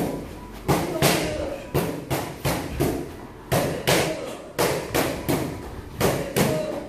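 Shadowboxing in a boxing ring: quick footsteps thudding on the ring floor, together with sharp exhales as punches are thrown, in an irregular rhythm of about two a second.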